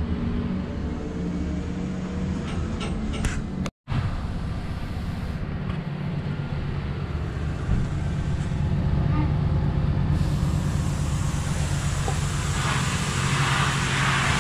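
Hitachi EX3600 mining excavator's diesel engine running steadily, a deep, even drone. A hiss builds over it near the end.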